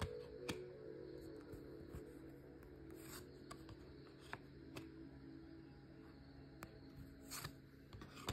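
Oracle cards being handled and slid one behind another: a handful of light clicks and swishes of card on card, spaced a second or so apart, over soft background music.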